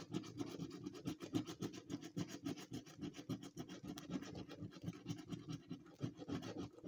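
Scratchcard coating being scraped off with a small hard scratcher in rapid back-and-forth strokes, several a second, stopping near the end.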